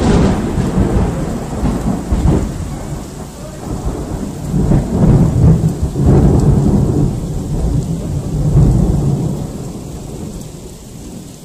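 Loud rolling thunder rumbling in several swells and slowly fading toward the end, with rain falling.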